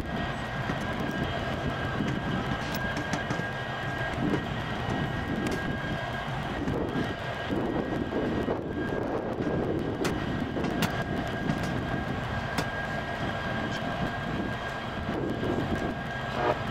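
Union Pacific diesel locomotive hauling a train slowly, its sound sped up twenty times into a steady mechanical whirring drone with a few faint clicks.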